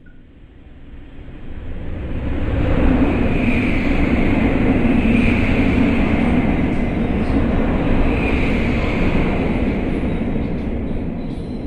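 Battery-operated toy airliner playing its jet-engine sound effect, a rushing roar with a high whine in it. It swells up over the first couple of seconds, holds steady, then slowly fades toward the end.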